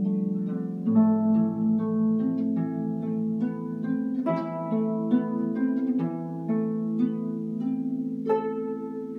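Harp duet: plucked harp notes ringing over low sustained bass notes, with a final chord plucked about eight seconds in and left to ring and fade.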